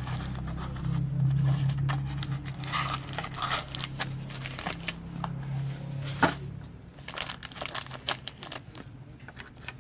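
A trading-card pack wrapper being torn open and crinkled, with scattered clicks and rustles as the cards are handled. A low steady hum runs underneath and stops about seven seconds in.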